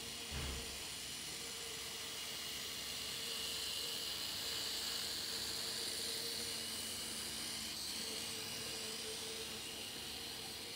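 Z-scale model train running past: the small locomotive's motor makes a thin high whine over a steady hiss, getting louder through the middle as the train passes closest, then easing off. A brief low bump just after the start.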